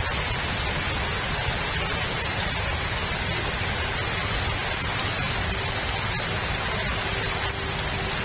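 Steady hiss of rain falling on and around an outdoor nest camera's microphone, even and unbroken, with a few faint short chirps in the second half.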